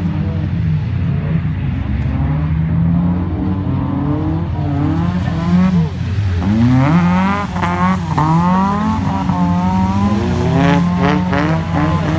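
Toyota AE86's engine revving hard up and down as the car drifts, the pitch swinging repeatedly, with a few short sharp bursts near the end.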